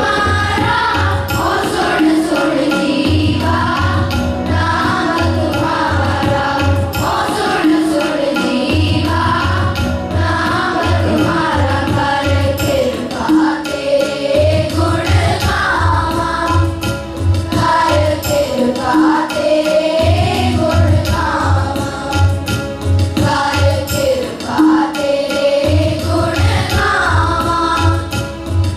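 Children's group singing a Sikh shabad (devotional hymn) in unison, over a steady low drum beat.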